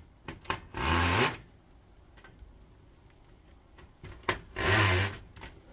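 Two short bursts of a drill-driver's bit grinding on a stubborn screw that will not turn, about four seconds apart, with small clicks of the tool between them.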